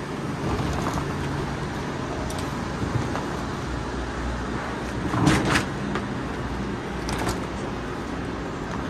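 Steady rumbling background noise of a large open station concourse, with a short clatter about five seconds in and a smaller one about two seconds later.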